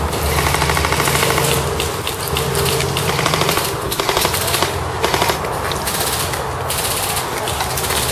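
Airsoft guns firing rapid automatic bursts: several bursts with short gaps, the longest in the first two seconds.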